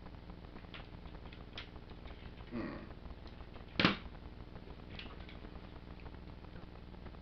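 Plastic parts of a Transformers Titans Return Trypticon toy clicking and knocking as it is handled: a few faint clicks, a short scrape about two and a half seconds in, and one sharp, loud click a little later.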